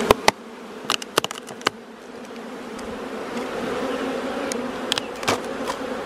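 Honeybees from an opened nuc box buzzing in a steady hum that swells after about two seconds. In the first two seconds come a few sharp clicks and knocks.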